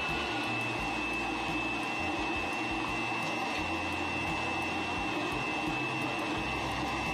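Electric blender motor running steadily, a constant high whine over a motor hum.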